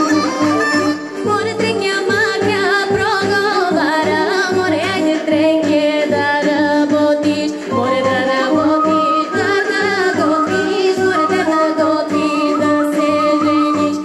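Bulgarian folk song: a woman sings into a microphone over an amplified backing track with a steady beat and an ornamented folk melody.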